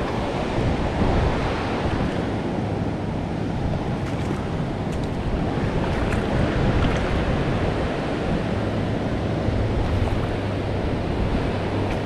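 River current rushing over rocks: a steady, even wash of water noise.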